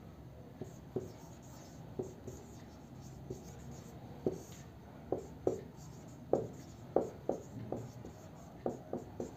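Marker pen writing on a whiteboard: irregular short strokes as the letters are drawn, sparse at first and coming thicker from about four seconds in.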